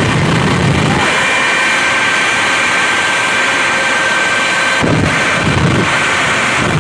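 The Shockwave jet truck's three Pratt & Whitney J34 turbojet engines running at high power: a loud, steady roar with a high, steady turbine whine. A throbbing low rumble under it drops away about a second in and returns near the end.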